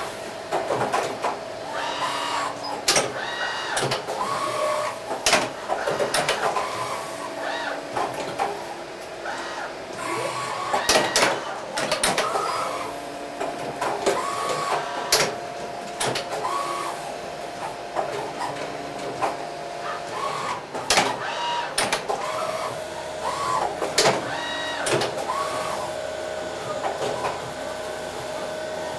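3-spindle PORTACENTER CNC machining center running through its moves: short whines from the axis drives as the spindles travel, sharp clicks and clunks at frequent intervals, and a steady spindle whine held for several seconds at a time.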